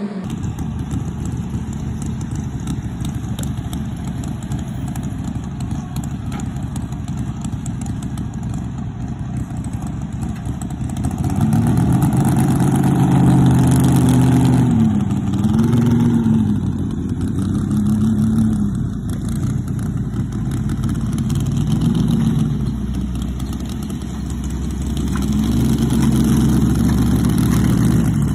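Modified mini pulling tractors' engines running hard under load while dragging a weight sled. For the first ten seconds or so the engine noise is steady, then a louder engine's pitch swings up and down several times as the revs rise and fall.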